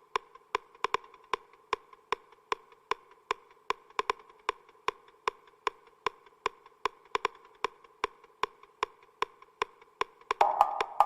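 Intro of an electronic trance track: sharp, woody percussion clicks at a steady pace of about three a second over a faint synthesizer hum, with a louder synth layer coming in near the end.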